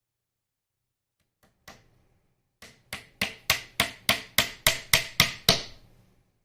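Hammer driving small nails into a wooden beehive frame: two light taps, then a steady run of about eleven strikes at roughly three a second, the first few quieter.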